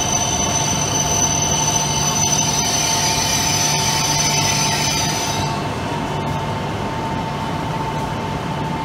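E6 series shinkansen, coupled to an H5 series set, moving slowly along the platform with a high-pitched wheel squeal. The squeal fades about five and a half seconds in, leaving a steady whine and low hum from the train.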